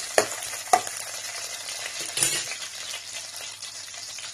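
Sliced onions sizzling in hot oil in a kadai, stirred with a metal spoon that clicks sharply against the pan twice within the first second and scrapes it once about two seconds in. The sizzle then continues steadily on its own.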